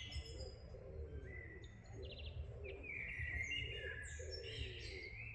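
Several small songbirds chirping and twittering in short, overlapping phrases, with a quick trill about two seconds in, over a low steady rumble.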